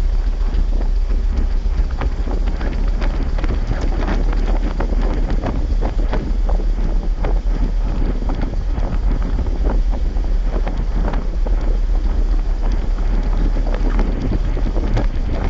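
Wind buffeting the microphone on a moving motorcycle: a loud, steady low rumble with constant rapid crackling.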